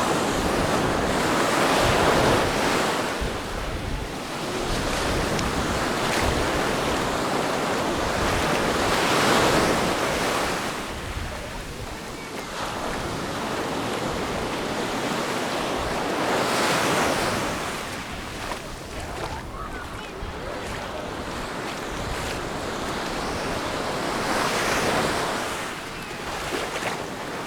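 Sea waves breaking and washing up on a sandy beach, swelling and fading about every seven to eight seconds, with wind rumbling on the microphone.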